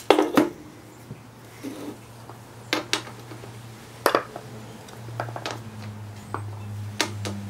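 Metal clinks and knocks as a Sanden scroll compressor housing and hand tools are handled and set down on a steel workbench: a handful of separate sharp clanks, over a steady low hum.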